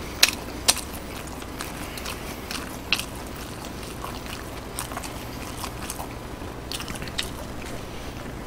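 A person sipping a soft drink through a straw from a paper cup, with scattered sharp mouth clicks and smacks, the loudest just after the start and about three seconds in, over a steady low hum.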